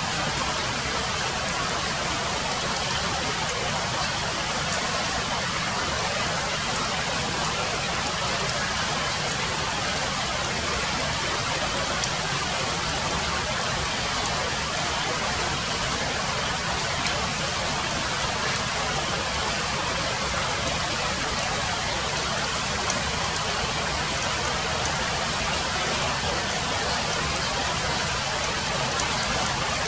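Steady hiss of rain falling on broad wet leaves, with a few faint drip ticks.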